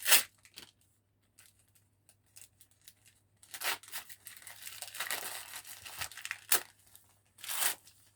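Wrapping paper being torn and crumpled as a present is unwrapped: a sharp rip right at the start, a quieter spell, then about four seconds of tearing and crinkling with louder rips near the end.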